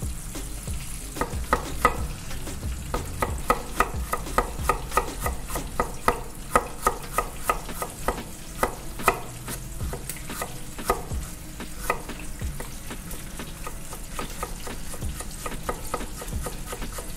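Chef's knife tapping on a wooden cutting board as fresh ginger is sliced and cut into fine strips, in quick, irregular taps that are thickest in the middle. Under it runs a steady hiss of fish frying in a pot of oil.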